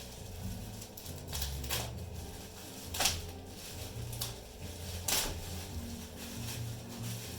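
Packaging being handled: a handful of short crackles and clicks, the loudest about three seconds in and again about five seconds in, over a steady low hum.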